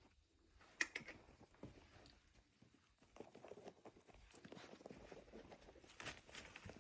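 A ferret at play, heard faintly: irregular light pattering and small clicks, with one sharper click about a second in.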